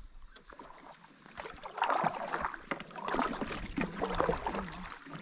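Water splashing and sloshing around a kayak, in irregular bursts beginning about a second and a half in.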